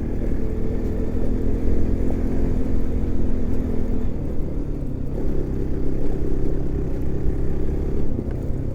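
Bajaj Pulsar NS200 motorcycle engine running as the bike is ridden, over a constant low rumble. The engine note drops a little about four to five seconds in, then holds steady.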